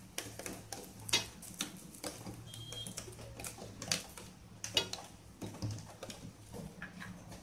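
Silicone spatula spreading butter across a nonstick tawa: soft, irregular scrapes and light taps against the pan.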